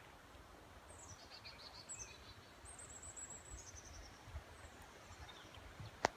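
Songbirds singing faintly: several quick descending series of high notes and a brief high trill in the first half, over soft low thumps of footsteps, with one sharp click near the end.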